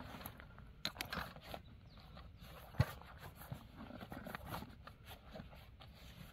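Gear being packed into a canvas-and-nylon backpack by hand: scattered rustling of fabric and small clicks and bumps of items, with one sharp knock about three seconds in.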